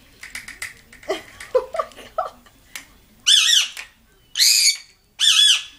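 Lovebird squawking angrily: a few short chirps and clicks, then three loud, harsh squawks about a second apart. The bird is agitated and scolding at an object near it.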